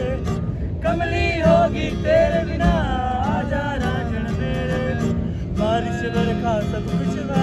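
A man singing a song to a strummed acoustic guitar.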